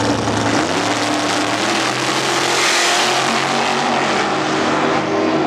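Two dragsters launch at full throttle and accelerate away down the strip. The loud engine roar rises in pitch about half a second in, with a rushing noise that peaks around three seconds in.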